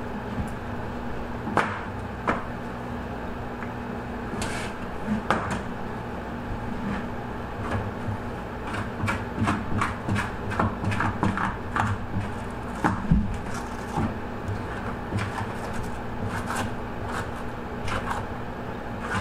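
Fleshing tool scraping meat off the inside of a largemouth bass skin on a stainless steel table: irregular small clicks and scrapes, sparse at first and coming thick and fast from about halfway through, over a steady low hum.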